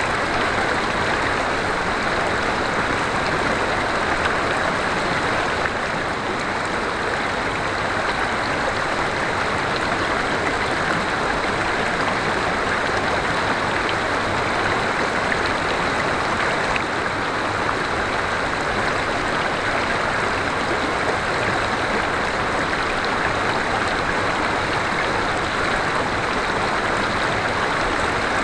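River water flowing steadily over rocks, a constant rushing and babbling.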